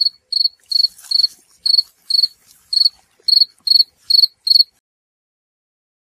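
Cricket chirping: about eleven short, high-pitched chirps at an even pace of two to three a second, then cut off suddenly.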